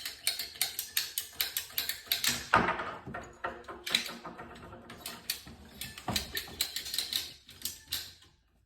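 Ratcheting PVC pipe cutter clicking rapidly, several clicks a second, as it is worked through a plastic pipe, with a louder scraping crunch about two and a half seconds in and again about six seconds in.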